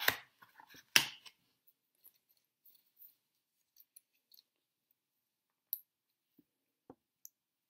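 Metal link watch bracelet and its clasp clicking as they are handled: a quick cluster of small metallic clicks with one sharp click about a second in, then a few faint, scattered clicks.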